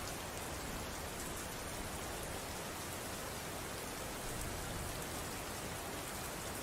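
Steady rainfall: an even, continuous hiss of rain falling on a surface, with no distinct drops or thunder standing out.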